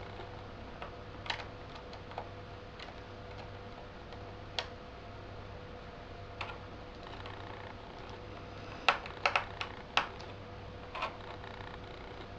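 Scattered small clicks and taps of a Phillips screwdriver working small screws into a laptop hard drive's metal mounting plate, with a quick cluster of sharper clicks about nine seconds in. A faint steady hum sits underneath.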